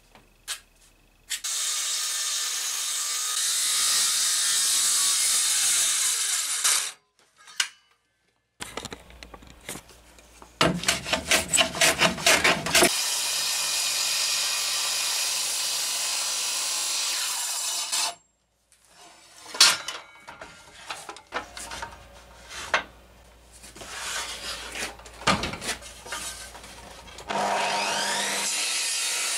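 Large Makita beam saw cutting into an oak beam in several runs of a few seconds each. Between the runs there are short knocks and handling clicks, and near the end the motor's whine rises as it spins up for the next cut.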